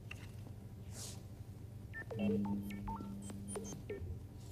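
Computer card reader sounding a quick run of short electronic beeps at changing pitches over a steady hum, about two seconds in, as it reads a personal data card.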